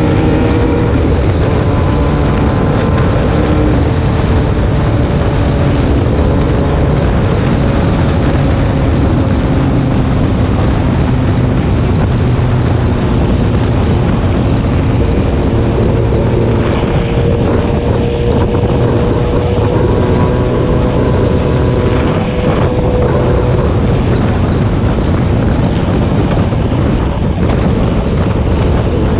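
A vehicle engine running at road speed, its note drifting slowly up and down, under heavy wind noise on the microphone.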